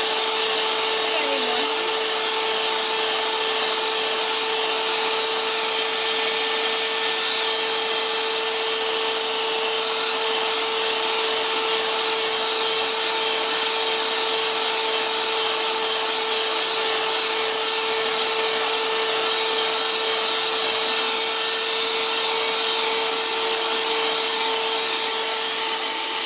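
Electric hand mixer running at one steady speed, a constant motor whine with the whirr of its beaters whipping meringue batter as orange food colouring is mixed in.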